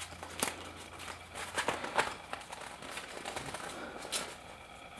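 Packaging being opened by hand: rustling and crinkling, with a few sharp taps and clicks.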